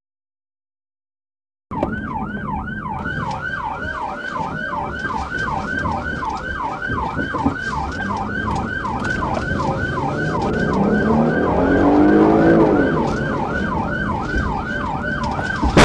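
Police car siren in fast yelp mode, rising and falling about three times a second, cutting in suddenly about two seconds in. A lower engine note climbs in pitch under it as the car accelerates, loudest around twelve seconds in.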